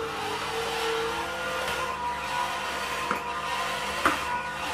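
Vertical slow juicer running steadily as watermelon chunks are pushed into its feed chute, with a few short knocks about three and four seconds in and again at the end.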